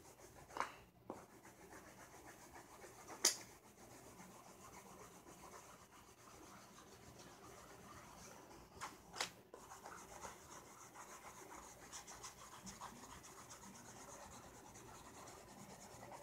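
Faint, steady scratchy rubbing of coloring strokes on sketch-pad paper, with a few light taps, the sharpest about three seconds in.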